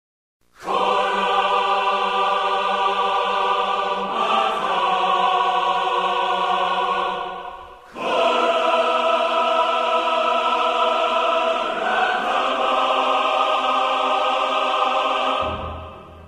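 Soundtrack music of long, loud held chords, each held about four seconds before the next chord comes in. The chords fade out near the end, leaving a low bass note.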